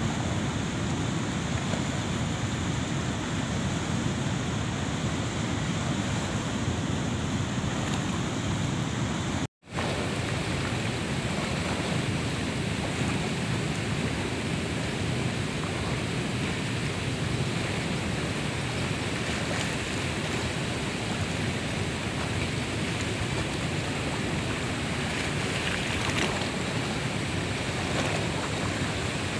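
Steady rush of fast-flowing river water spilling from a dam's open sluice gates, with a brief dropout about ten seconds in.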